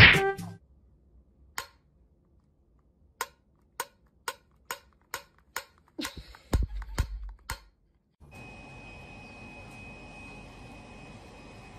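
A hand tapping a metal tin can: a series of sharp taps, sparse at first and then about two a second, about eleven in all. In the last few seconds only a faint steady hiss with a thin high whine.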